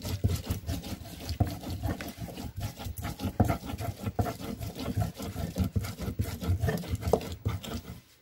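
Ulekan pestle grinding rujak sauce in a wide cobek mortar: a quick, steady run of scraping and knocking strokes that stops abruptly just before the end.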